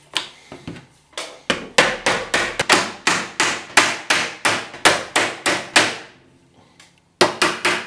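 A hammer beating on the bent steel frame of a dishwasher door to straighten it. A fast run of sharp metal blows, about four or five a second, stops briefly, then a few more quick blows come near the end.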